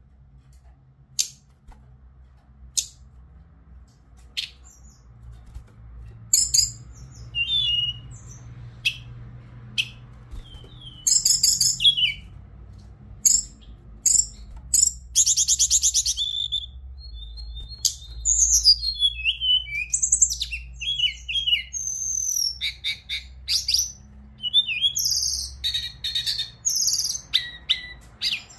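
Hill blue flycatcher (Cyornis whitei) singing: a few sharp single call notes at first, then from about six seconds in a run of fast high trills and whistled notes sliding up and down. A faint low hum runs underneath.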